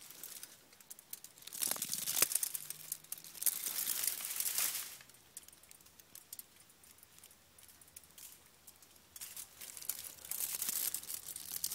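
Aluminium foil and insulating film of a burnt-out high-voltage capacitor's winding crinkling and rustling as it is handled and pulled apart, in two spells: from about a second and a half in to about five seconds, and again over the last few seconds.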